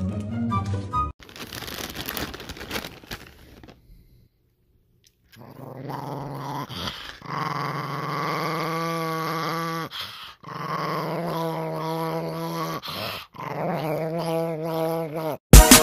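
A chihuahua growling in four long, warbling bouts, with short pauses between them, while it bares its teeth in a display of annoyance over treats.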